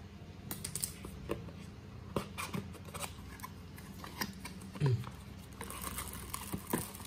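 Scissors snipping through the seal of a cardboard box in scattered sharp clicks, then cardboard flaps pulled open and plastic wrapping crinkling near the end.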